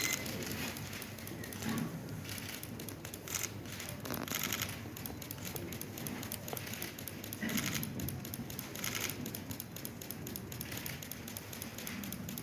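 Giant pandas chewing bamboo: brittle crunching and cracking of the stalks and leaves, coming in irregular bursts every second or two.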